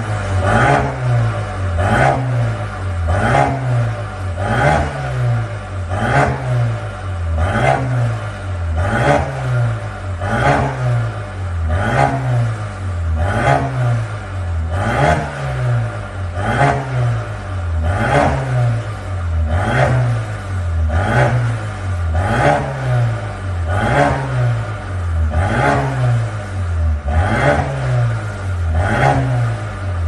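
Mercedes-AMG A35's turbocharged 2.0-litre four-cylinder through a catless ARMYTRIX full valvetronic exhaust, free-revved in quick repeated throttle blips, rising and falling roughly every three-quarters of a second. Each blip carries a sharp crack from the exhaust.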